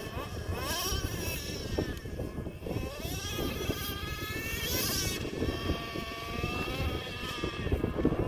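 Traxxas Slayer Pro's small nitro engine running and revving, its whine rising and falling in pitch again and again as the truck is driven.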